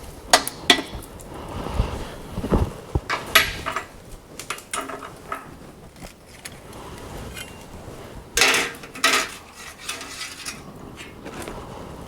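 Forged mild-steel door handles clinking and clanking against each other and other metal as they are handled, in scattered sharp knocks with a longer clatter about eight seconds in.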